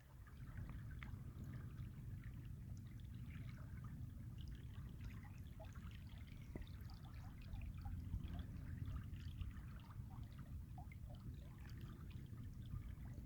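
Calm Colorado River water lapping and trickling softly, many small splashes over a low steady rumble.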